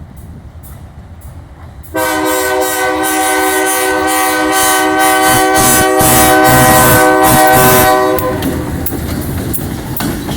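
GE B23-7 diesel locomotive's air horn sounding one long steady blast of about six seconds, starting abruptly about two seconds in and cutting off near eight seconds. Under and after it comes the rumble and wheel clicks of the moving train.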